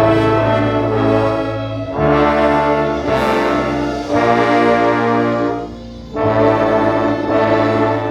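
An orchestra playing a slow piece led by brass, trombones and trumpets holding sustained chords in phrases of about two seconds, with a brief break just before the last phrase.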